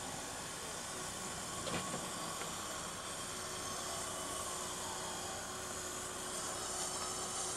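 Steady hiss of outdoor ambience picked up by a camcorder's built-in microphone at a football pitch, with a faint sharp knock a little under two seconds in and a weaker one soon after.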